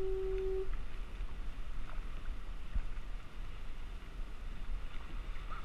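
Wind buffeting the microphone with water moving around a kayak, a steady low rumble with a few faint ticks. A single steady pitched tone stops about half a second in.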